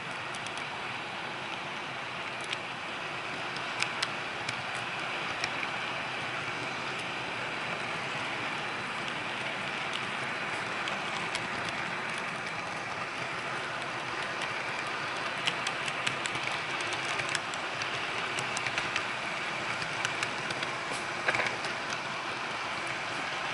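Model train cars rolling along the track: a steady whirring rumble of wheels on rail, with scattered sharp clicks, a cluster of them about 21 seconds in.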